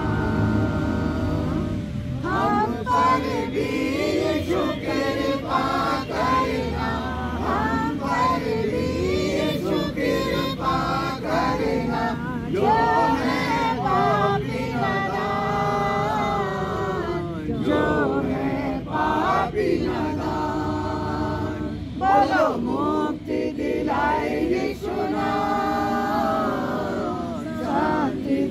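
A small mixed group of men and women singing together in unison, unaccompanied.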